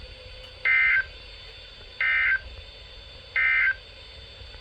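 Three short bursts of the warbling SAME digital data tone from a NOAA Weather Radio broadcast, evenly spaced about a second and a half apart. This is the end-of-message (EOM) code that closes an Emergency Alert System message.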